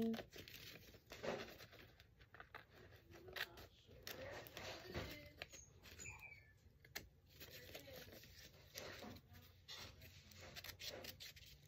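Small scissors snipping through a sheet of notebook paper: a run of faint short snips with paper rustling between them.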